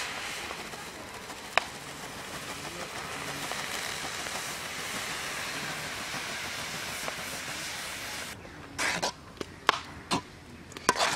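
Steady rustling hiss of flour pouring from a plastic bag into water in an aluminium pan, stopping about eight seconds in. A few sharp knocks and scrapes of a spoon against the metal pan follow as the flour and water are stirred.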